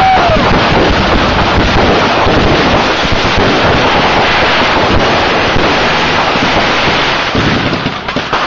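Dense, continuous crackling of many fireworks going off at once, loud and steady, easing briefly near the end.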